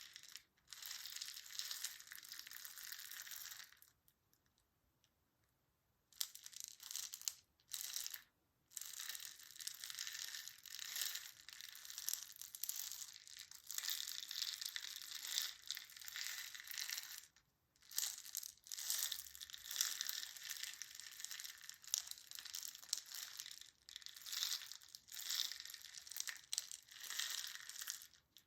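Crisp crinkling and crushing noise, made in stretches with short pauses between them, including a silence of about two seconds about four seconds in.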